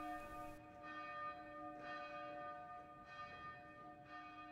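A faint bell tolling, struck roughly once a second, each stroke ringing on and fading before the next.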